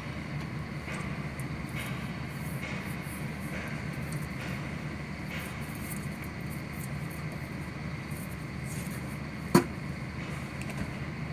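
Steady low background rumble with faint ticks about once a second, and one sharp click about nine and a half seconds in.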